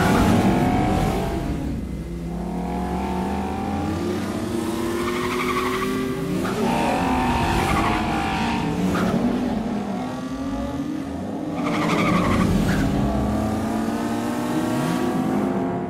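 BMW M2 coupés' engines revving up and down as the cars drift, with tyres squealing and skidding on the tarmac.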